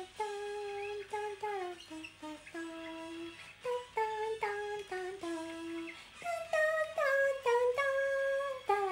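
A young woman humming a tune to herself without words. Her notes are held and step up and down, and the singing grows louder in the second half.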